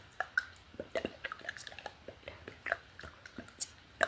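ASMR mouth sounds: an irregular string of short lip smacks and tongue clicks, mixed with unintelligible whispering.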